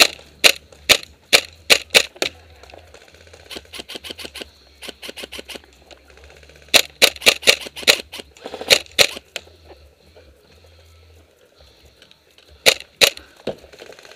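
Airsoft guns firing: loud single shots in quick succession in clusters, with a quieter fast full-auto burst from farther off about four seconds in.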